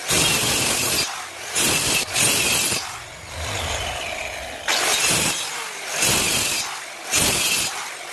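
Wood being cut with a hand saw: rasping strokes about once a second, with a quieter, steadier stretch around the middle.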